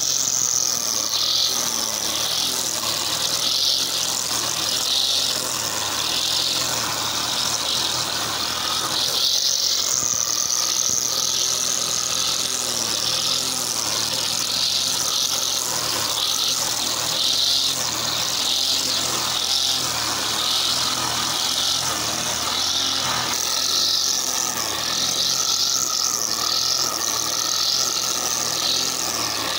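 Brush cutter engine running steadily at cutting speed, its spinning head hissing loudly through short dry grass. A slightly different steady tone joins about three-quarters of the way through.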